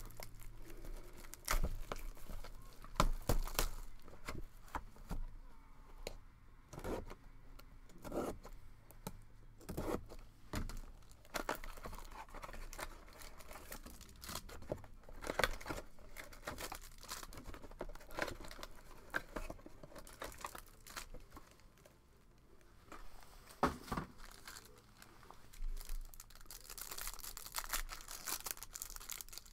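Sports card packaging being torn open and wrappers crinkled, with scattered rustles and clicks as the pack and cards are handled, and a longer stretch of tearing near the end.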